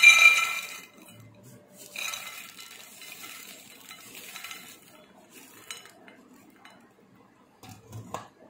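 Fried coated peanuts poured from a pan onto a ceramic plate, clattering and clinking against it with a short ring from the plate. There is a loud pour at the start and a second, weaker pour about two seconds in. After that come only a few faint clicks near the end.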